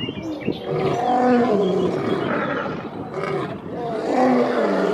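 Two male lions roaring together: long, deep calls that slide down in pitch.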